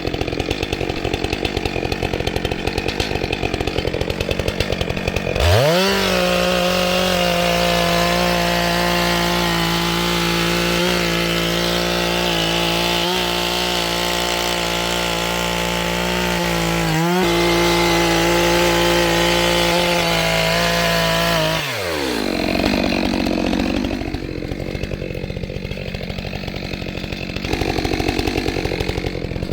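Chainsaw running, then revved up to full throttle about five seconds in and held steady for about sixteen seconds, with a brief dip partway, before the revs fall back near the end.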